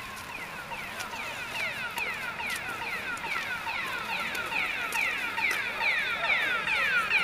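An electronic alarm sounding a fast, repeating series of falling chirps, several a second, growing louder.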